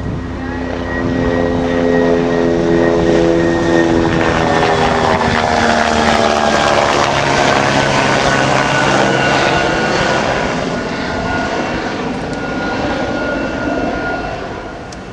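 Helicopter flying low overhead, its engine and rotor sound loud and steady, with a sweeping, phasing rise and fall in tone in the middle as it passes over, easing slightly near the end.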